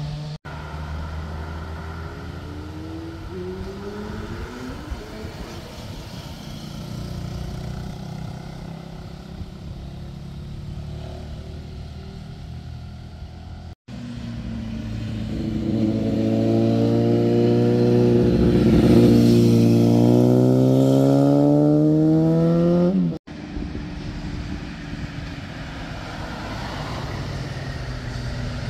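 Motorcycle engines, one bike after another, riding through a hairpin bend and accelerating away. The engine pitch climbs as each bike pulls through the gears. Loudest is a bike whose pitch rises steadily over several seconds in the middle, and the sound cuts abruptly between bikes.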